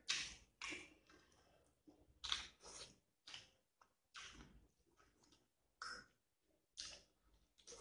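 Close-up chewing and lip-smacking as rice and beef curry are eaten: a string of short, quiet mouth sounds, about one or two a second.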